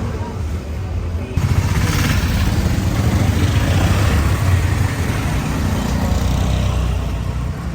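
A motor vehicle passing close by on a street, with engine rumble and road noise. It gets suddenly louder about a second and a half in and fades toward the end.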